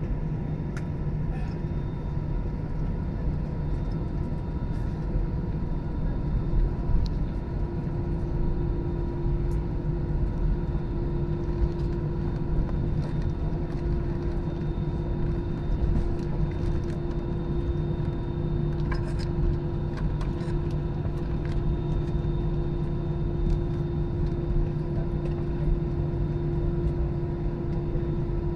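Steady airliner cabin noise while taxiing after landing: a low rumble from the engines at idle, with several steady hums. A new hum joins about seven seconds in, and faint rattles come and go.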